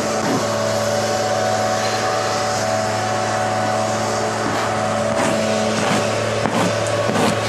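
Steady, loud machine hum of cowshed equipment running. From about five seconds in, the scrape of a long-handled tool pushing manure across a slatted concrete floor.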